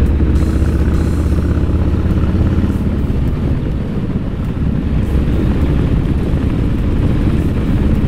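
Motorcycle engine running steadily at road speed, under a low rumble of wind and road noise.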